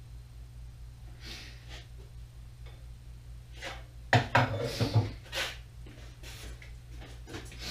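Metal parts and tools being handled during reassembly of a lathe headstock: soft scrapes and rubs, then a quick cluster of clanks about four seconds in. A steady low hum runs underneath.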